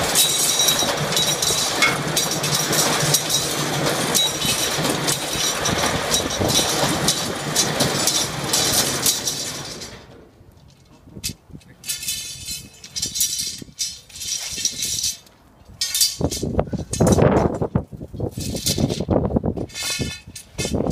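YGTQ6-16 rebar straightening and cutting machine running steadily, with a low hum and dense rapid clicking as wire feeds through its straightening rollers. It stops abruptly about ten seconds in, and irregular metallic clatter and clinks follow.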